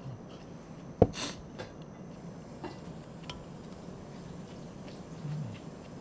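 Aluminium camping mug set down on a wooden counter with a sharp knock about a second in, followed by a brief hiss. A few light clinks follow as chopsticks work in the metal mug.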